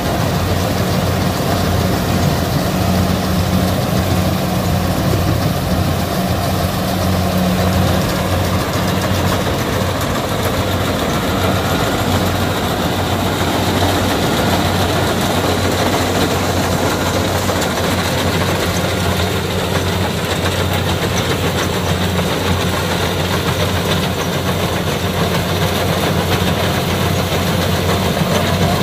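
Kubota DC68G combine harvester's diesel engine running steadily, a constant low hum with machinery noise over it.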